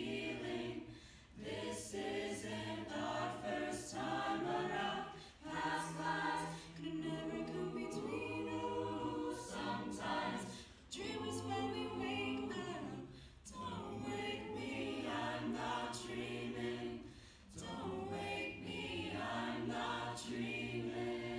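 Mixed-voice a cappella choir singing held chords, in phrases of a few seconds with short breaks between them.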